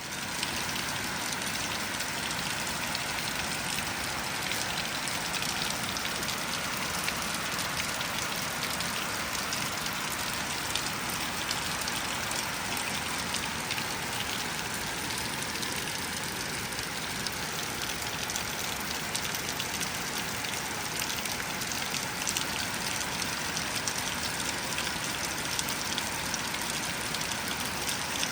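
Steady rain falling: a dense patter of drops over an even hiss, getting louder right at the start and then holding steady.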